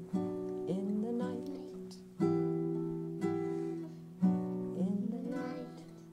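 Acoustic guitar strumming chords at the end of a song, about one strum a second, each chord ringing out and fading before the next.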